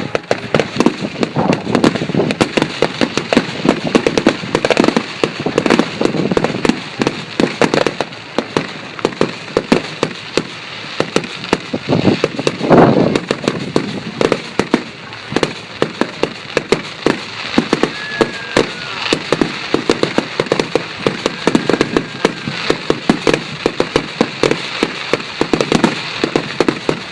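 Fireworks display: a rapid, continuous barrage of bangs and crackles, with one loudest, longer boom about halfway through.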